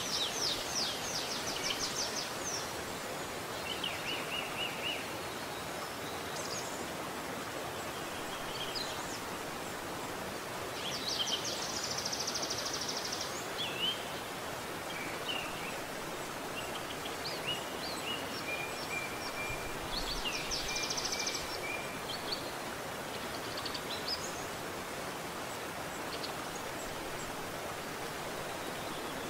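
Shallow forest stream running steadily over rocks, with songbirds singing on and off: fast trills about a second in, near the middle and around twenty seconds in, short chirps between, and a long thin whistle around the same time as the last trill.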